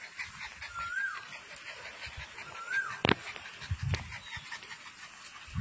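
French bulldog puppy giving two short, high whimpers that rise and fall while playing, with light panting. A sharp click comes just after three seconds.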